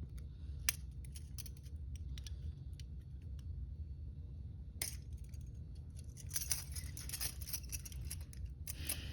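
Faint metallic clicks and scrapes of a pick working in the lock of cheap double-locked hinged handcuffs, sparse at first with one sharper click about five seconds in, then busier for a couple of seconds near the end. The stubborn cuff does not release.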